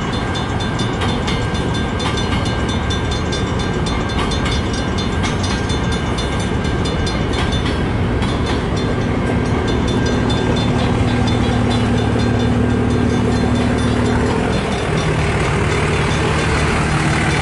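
Freight train cars rolling past close by, their steel wheels rumbling and clicking on the rails. About halfway through, a steady low engine drone joins in and grows louder, changing pitch about three seconds before the end.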